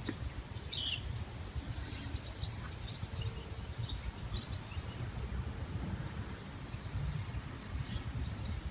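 Small birds chirping in the background, many short high chirps, over a steady low rumble.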